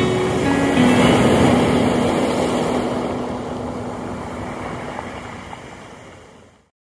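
Surf breaking and washing up over a pebble beach, with a faint held low note of music beneath it; the whole sound fades out to silence near the end.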